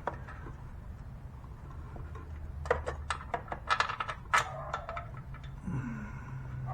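Steel bolts and hand tools clinking: a flurry of irregular light metallic clicks and taps about three seconds in, over a steady low hum.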